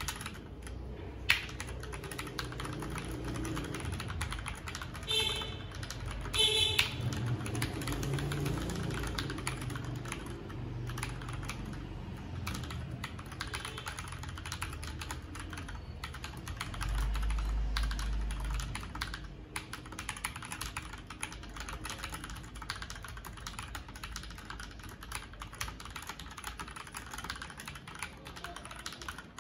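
Typing on an Akko 3087 DS Ocean Star tenkeyless mechanical keyboard in a sound test: a continuous run of key clacks. A low hum rises for about two seconds a little past the middle.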